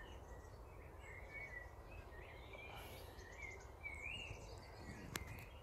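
Faint, distant birdsong, a run of warbling chirps over a low steady outdoor background, with a single sharp click near the end.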